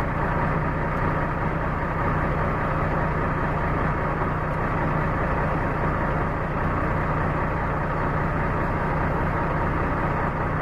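Kenworth T880's 450 hp Cummins diesel engine running steadily, a low even drone that holds the same pitch throughout.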